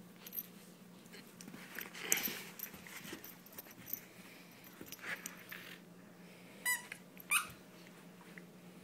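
German Shepherd puppy playing tug-of-war with a plush toy: scattered scuffles and rustles, then two short high-pitched squeaks in quick succession near the end.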